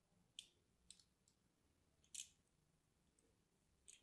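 Craft-knife blade scoring lines into a bar of soap: faint, crisp little scratches, about six spread out, the loudest a short scrape about two seconds in.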